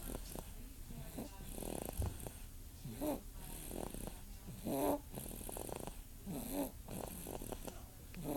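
Sleeping baby snoring, breath after breath. Four louder, pitched snorts stand out roughly every one and a half to two seconds over softer, rattly breathing.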